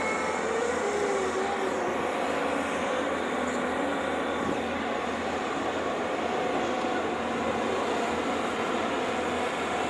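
Excavator's diesel engine running steadily under load, with a faint wavering whine in the first couple of seconds.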